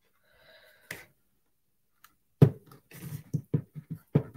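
Plastic back cover of an AT&T Calypso phone being pried off by hand. A faint rustle and a single click come first, then from about two and a half seconds in a quick run of sharp snaps and taps as the hard cover's clips work loose.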